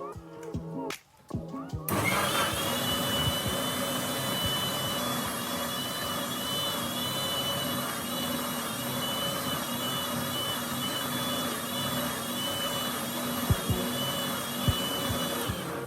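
Electric mixer grinder (mixie) running steadily with a high whine, whipping the partly frozen ice cream mix to a foam for the second time. It starts about two seconds in and stops just before the end.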